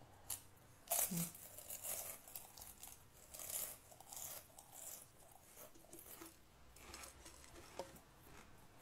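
A person chewing crunchy food close to a phone's microphone: irregular crunches, the loudest about a second in and again around three and a half seconds in.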